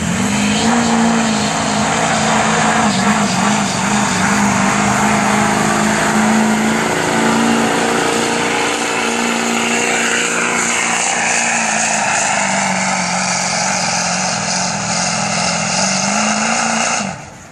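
Turbo-diesel V8 of a stock 2005 Chevy Duramax LLY pickup at full load, pulling a weight-transfer sled. The engine note climbs as the truck launches, holds steady for most of the pull, then drops away near the end.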